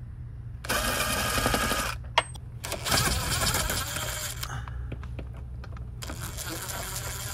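Cordless DeWalt impact driver running in three bursts, its hammer mechanism rattling as it backs out the Jeep Gladiator's T45 Torx windshield-frame bolts.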